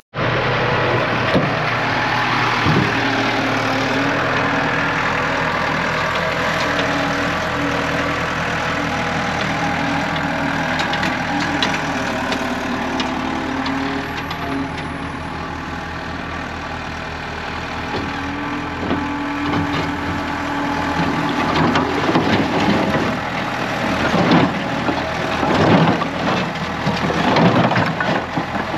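A vehicle engine running steadily at a low, even speed. In the last several seconds a series of knocks and clatters sounds over it.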